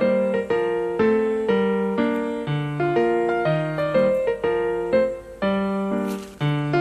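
Background piano music: a gentle melody of single notes and chords, struck about twice a second and left to decay.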